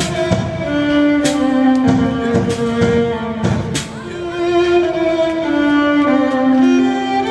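Background music led by bowed strings, a violin melody of long held notes over a beat.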